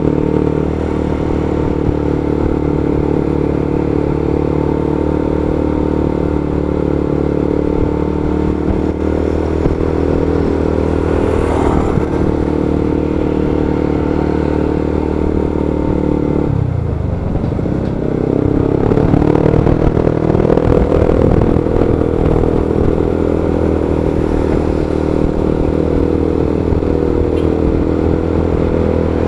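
Motorcycle engine running at low, steady speed in slow traffic; about two-thirds through, the engine note drops sharply as it slows, then rises again as it picks up speed.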